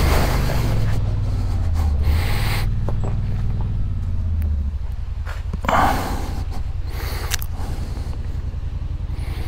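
ATV engine running at low speed, settling to an even idle about halfway through, with a brief rush of noise just after the middle.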